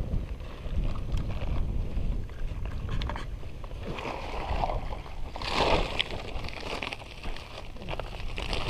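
Wind and handling noise on a body-worn camera's microphone, a low rumble with scattered knocks, and a brief noisy rustle about five and a half seconds in as a plastic bag is handled.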